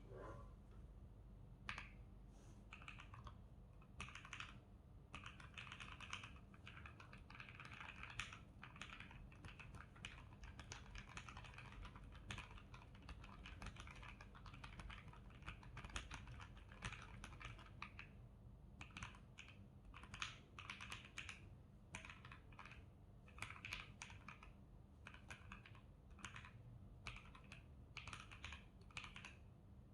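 Typing on a mechanical keyboard fitted with lubed Akko CS Starfish switches and Akko ASA-profile keycaps: a quiet run of keystrokes that starts about a second and a half in, with stretches of fast, dense typing and short gaps between groups of strokes.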